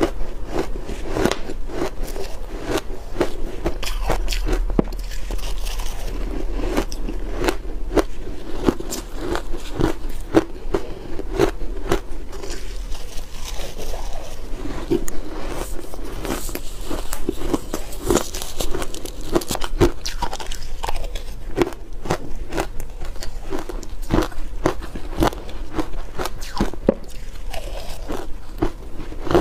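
Close-up crunching of dry shaved ice dusted with matcha powder, bitten and chewed in quick, continuous crunches.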